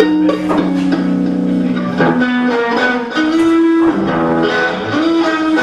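Live blues band playing an instrumental passage: electric guitar holding and bending notes over bass guitar.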